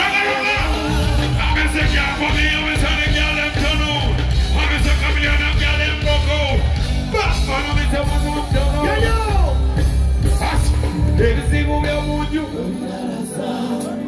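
Music played loud through a concert PA during a stage sound check: a singer's voice over a band with a heavy bass line, which drops out near the end.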